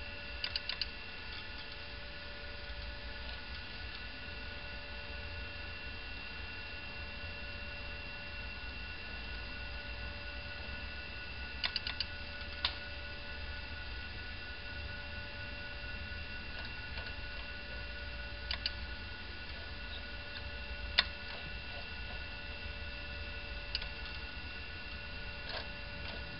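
Steady electrical hum with a few fixed whining tones. Sharp clicks come now and then, some in quick little clusters of two or three, with the loudest single click about two thirds of the way through.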